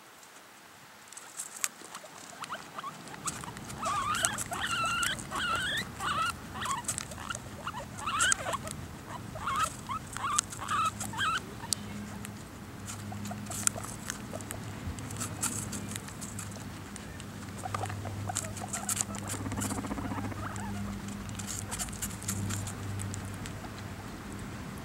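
Guinea pigs crunching apple pieces, with many sharp chewing clicks throughout. From about four to eleven seconds in comes a run of short, high squeaks. In the second half a low hum comes and goes.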